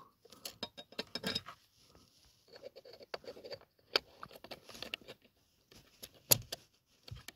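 Plastic electrical connector being handled and pushed onto the AC evaporator temperature sensor: light rattling with a few sharp plastic clicks, the loudest about four seconds in and just after six seconds.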